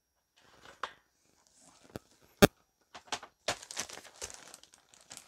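Comic slabs and packing material being handled: a few soft clicks and one sharp click about two and a half seconds in, then plastic crinkling and rustling as the next slab is lifted from the shipping box.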